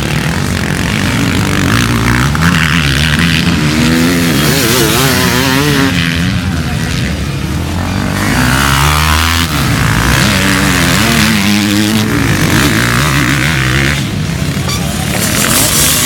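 Motocross bikes racing past, engines revving up and falling back over and over as riders shift and throttle on and off, with several bikes going by.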